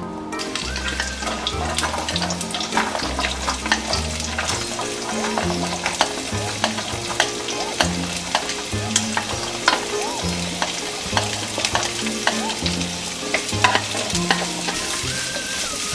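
Vegetables stir-frying in hot oil in a nonstick frying pan: a steady sizzle with frequent sharp clicks and taps. Soft background music with a bass line plays underneath.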